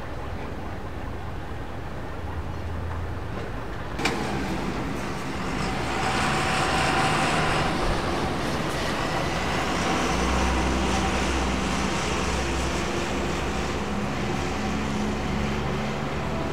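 Distant jet engines of an airliner taxiing, a steady rumble and whine. A sharp click about four seconds in, after which the engine noise is louder.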